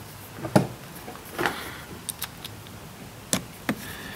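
Scattered clicks and light knocks of small parts and a nut driver being handled on a chainsaw's air filter housing, the loudest about half a second in.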